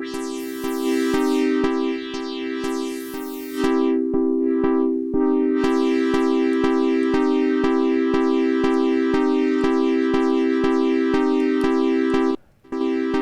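Logic Pro's Retro Synth, a software synthesizer with square and triangle oscillators, playing a looped sustained chord pattern. A steady ticking about three times a second runs under it. The sound drops out briefly near the end, then the loop resumes.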